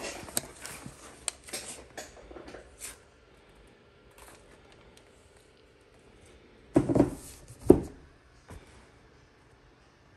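Handling noise of unpacking a laptop box: light clicks and rustles of cardboard and paper packaging, then two louder thumps about seven seconds in as something is set down.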